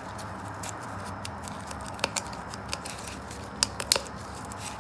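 Gloved fingers working a rubber O-ring off the threads of an oil filter housing: soft rubbing and scraping with a few sharp clicks, two about two seconds in and a quick cluster of three in the second half, over a steady low hum.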